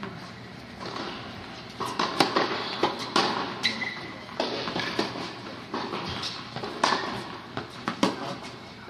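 Tennis balls struck by rackets and bouncing on an indoor hard court: irregular sharp knocks a second or so apart, ringing in the hall. There is a brief high squeak a little under halfway through.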